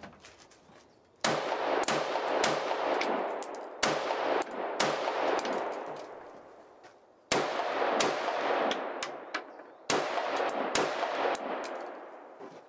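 Semi-automatic UR-15 AR-15-pattern rifle with a 20-inch barrel and a three-chamber compensator firing about a dozen shots. The shots come in quick groups with short pauses between them, and each one echoes and dies away over about a second.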